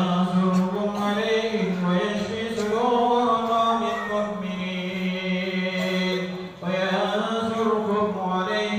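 A single voice chanting Qur'anic verses for ruqyah in long, melodic held phrases, with a short break for breath about six and a half seconds in.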